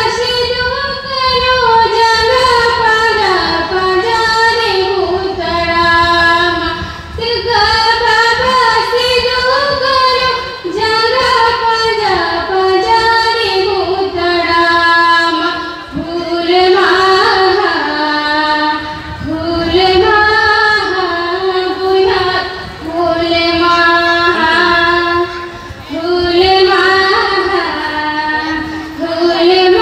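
A woman singing solo into a microphone, amplified over loudspeakers, in long melodic phrases with brief pauses between them.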